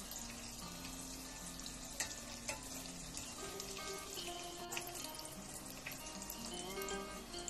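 Breaded chicken feet deep-frying in hot oil, a steady crackling sizzle with a few sharp clicks, the loudest about two seconds in.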